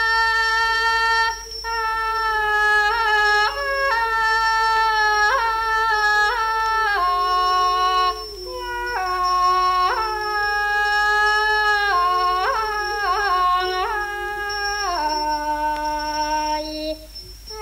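Thai classical music from an old LP: one unaccompanied melodic line of long held notes joined by ornamental slides, pausing briefly about a second in, again around the middle and near the end.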